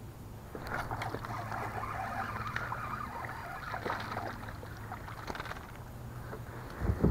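A small largemouth bass splashing and thrashing at the surface among lily pads as it is reeled in to the kayak. There is a loud thump near the end as the fish is swung up against the boat.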